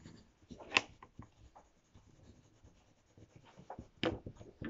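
Crayons scratching and rubbing on paper, with a sharp tap a little under a second in and a few louder knocks near the end.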